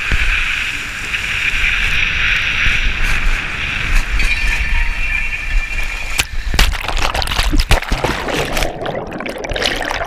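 Water rushing down an enclosed water-slide tube, with the rider sliding on it: a steady echoing hiss over a low rumble. About six seconds in it gives way to loud, choppy splashing as the rider plunges into the splash-down pool, and the sound turns muffled underwater near the end.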